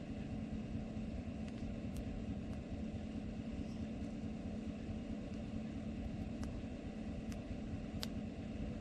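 A steady engine rumble with a constant low hum, like a vehicle running, with a few faint clicks.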